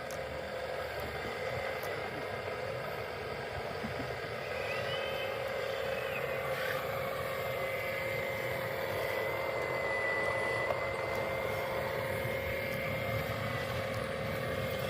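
Electric motor and gearbox of a radio-controlled construction model running, a steady whine with a rushing hiss beneath it that grows stronger about four seconds in.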